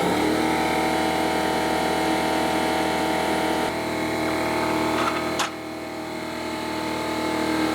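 Electric air compressor motor running steadily while filling the tyre, with one sharp click about five seconds in.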